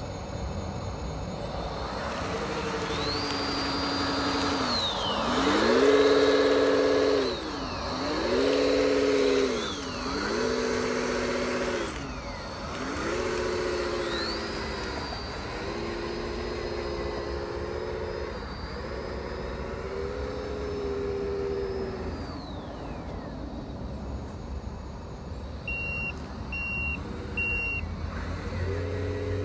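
Electronic sound-kit diesel engine sounds from a model excavator and an 8x8 model dump truck, revving up and down over and over, with a high whine that rises and falls. Near the end there are three short reversing beeps.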